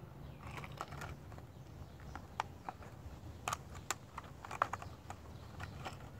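Clear plastic blister package of a fishing lure being handled and turned over, giving scattered light clicks and crackles at an irregular pace.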